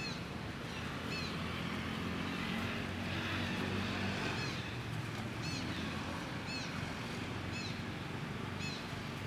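A bird's short, high chirp repeating about once a second, over a steady low engine hum.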